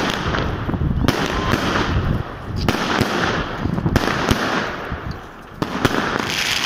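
Aerial fireworks going off: a rapid run of bangs and crackling as shells burst one after another, easing off briefly about five seconds in before picking up again.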